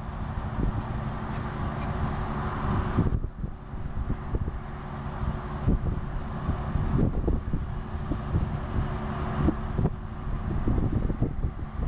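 Robinson R44 helicopter running at idle on the ground with its rotors turning: a steady engine and rotor hum, with a gusty low rumble of wind on the microphone.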